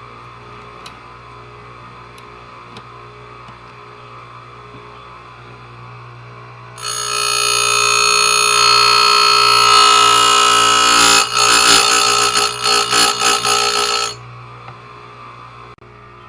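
Strongway electric chainsaw sharpener running with a steady hum. About seven seconds in, its grinding wheel bites into a chain tooth with a loud, high-pitched grinding whine that holds for about four seconds. It then breaks into several short touches and stops about two seconds before the end, leaving the motor hum.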